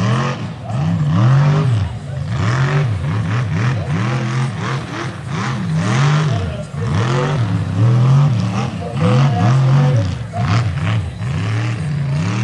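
Mega truck engine revved hard over and over, pitch climbing and dropping about once a second as it churns through a mud pit, with bursts of noise from mud and spinning tyres.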